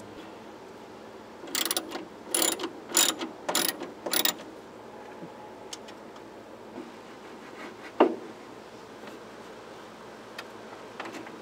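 Five quick rasping ratchet strokes, about one every half second, as a bolt on a classic VW Beetle's door hardware is worked. About eight seconds in there is a single sharp metallic knock.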